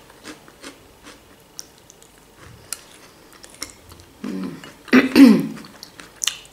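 Mouth sounds of a person eating a mayonnaise salad from a spoon: quiet chewing with small wet clicks. About five seconds in there is a short voiced throat sound falling in pitch, and a sharp click follows near the end.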